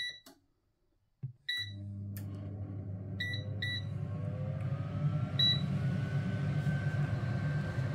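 Tower 5-in-1 air fryer's touch-panel control beeping about five times, short electronic beeps as its buttons are pressed. About a second and a half in, the air fryer starts running with a steady hum, and a faint whine rises in pitch as it spins up, then holds steady.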